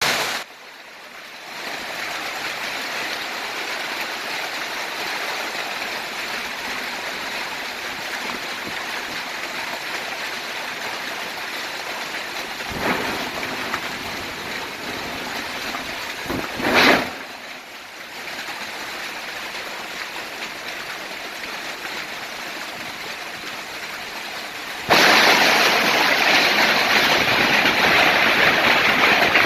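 Storm rain and wind making a steady rushing noise, with two brief louder swells partway through. The noise jumps sharply louder about 25 seconds in and stays there.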